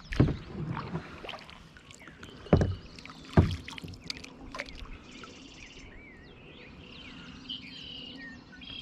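A few sharp knocks of a paddle against a kayak hull as it is worked back out of the shallows, the two loudest about two and a half and three and a half seconds in. Birds chirp faintly in the second half.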